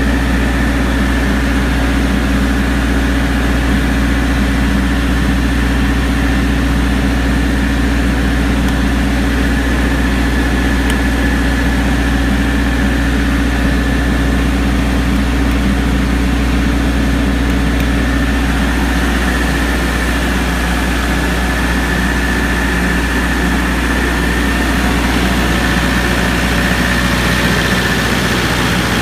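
MEP-803A 10 kW military diesel generator running steadily, a constant low engine drone with a faint high whine over it.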